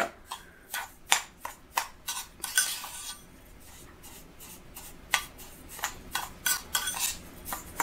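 Spoon scooping grainy salt-and-coconut-oil scrub out of a bowl into a container: a run of irregular clinks and scrapes, thinning out for a second or two in the middle.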